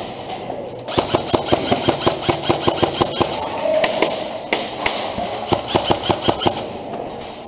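Airsoft rifle firing rapid strings of shots, about six or seven a second. A first string starts about a second in and runs past three seconds, and a second string runs from about four and a half to six and a half seconds.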